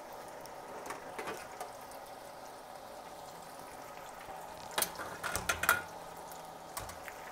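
Hot oil in a T-fal electric deep fryer sizzling and bubbling steadily as food fries. The fryer's lid is opened, with a couple of clicks about a second in and a cluster of louder metallic clanks around five seconds in.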